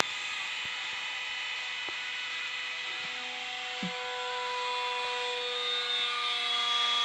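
Hydraulic press's pump motor whining steadily, with a few faint clicks and knocks, growing louder over the last couple of seconds.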